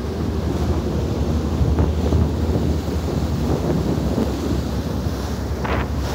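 Wind buffeting the microphone and water rushing along a moving passenger ferry, over the steady low rumble of its engine.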